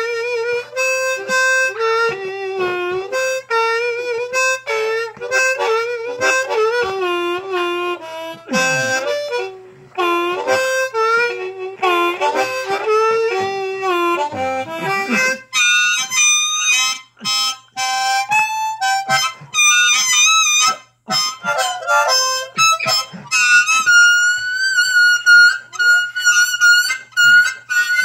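Harmonica played solo as a slow blues, cupped in the hands: sustained lower notes with bent, sliding pitches in the first half, then quick choppy notes higher up, ending on a long, wavering high note.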